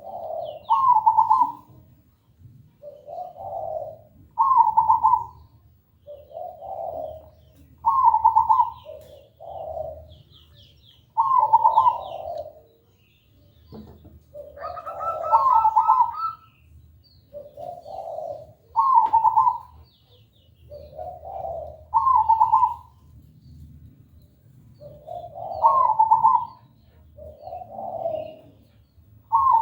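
Zebra dove (perkutut) singing its cooing song, one phrase about every three to four seconds. Faint high chirps of a small bird sound between the phrases.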